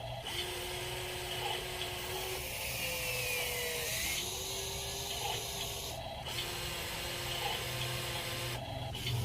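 Small electric motors of a 1:16 scale RC excavator whining as it digs. The whine slides up and down in pitch and breaks off and restarts a few times as the movements change.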